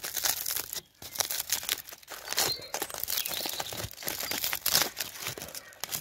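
Aluminium foil crinkling and tearing as a foil-wrapped parcel is peeled open by hand: a dense run of irregular crackles, with a brief pause just under a second in.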